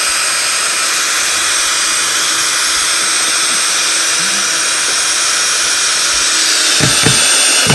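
Ryobi cordless drill driving a 2-inch screw through a couch leg's metal mounting bracket into the couch frame, motor running steadily at one speed and a little louder near the end.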